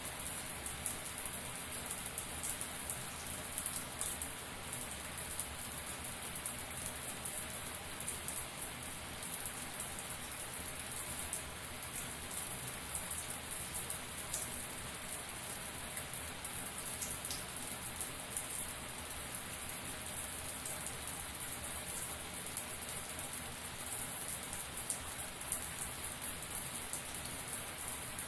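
Shower water running steadily, a continuous hiss of spray with fine patter of drops striking a surface.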